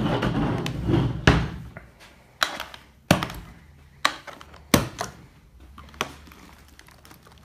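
Black hard plastic Pelican-style case being handled and turned on a table, a rough rubbing and knocking for the first second or so, then about five sharp plastic clicks and snaps a second or so apart as its latches are flipped open.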